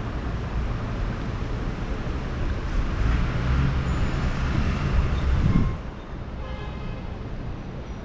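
Road traffic noise: a steady rumble of passing cars and buses that swells louder about halfway through, then drops away suddenly a little before the end.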